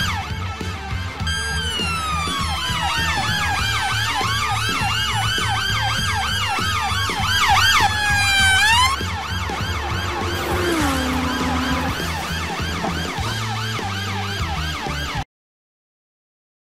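Several police sirens wailing and yelping at once, fast and slow pitch sweeps overlapping, over a low pulsing bass line of background music. All sound cuts off suddenly near the end.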